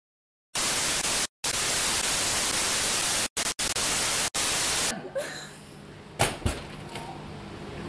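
Loud TV-static hiss as a sound effect, cutting out briefly a few times, then stopping suddenly about five seconds in. A faint background follows, with two thumps about a second later.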